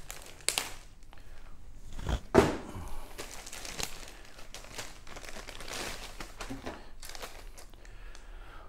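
Clear plastic bags crinkling and rustling as plastic model kit sprues are handled and pulled out of them, with one sharp knock about two and a half seconds in, the loudest moment.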